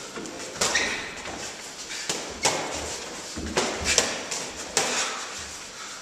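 Boxing gloves landing and feet moving on the ring floor during light sparring: about half a dozen sharp thuds and slaps spread through it, with shuffling in between.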